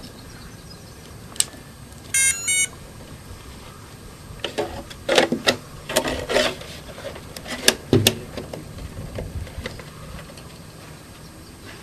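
A quick run of stepped electronic beeps about two seconds in, then a few seconds of irregular clicks and clattering handling noise; no motor or rotor is running.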